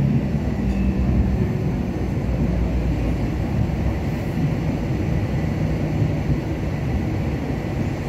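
Hong Kong Light Rail Phase III car running, heard from inside the cabin: a steady low rumble of motors and wheels on the track.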